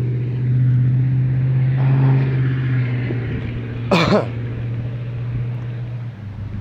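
A steady low engine hum, with a person coughing once about four seconds in.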